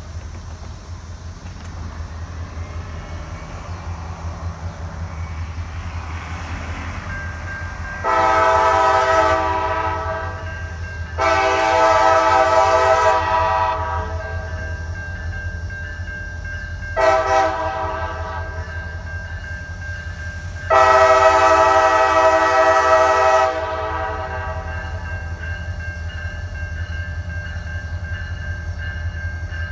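CSX SD40-3 locomotive's multi-chime air horn sounding the grade-crossing signal: two long blasts, one short, then a final long one. A steady low diesel rumble runs beneath.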